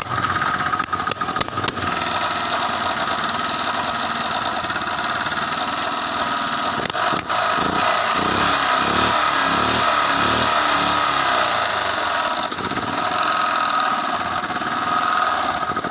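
Petrol generator's small engine running loud and steady, with a short dip about seven seconds in. This is the unit that pops and puts out white smoke, which the owner suspects comes from a rich-running carburettor or a bad cylinder gasket.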